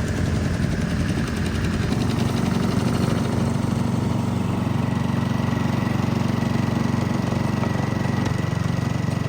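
An engine running steadily at idle, with no change in speed.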